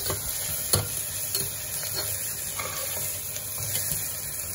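Onions, green chillies and ginger-garlic paste sizzling in oil in a pressure cooker while a perforated metal spatula stirs and scrapes the pan, with a few sharp clinks of metal on metal.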